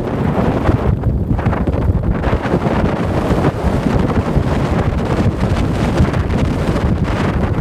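Wind buffeting the microphone from a moving car, a steady low rushing over the hum of the car and road.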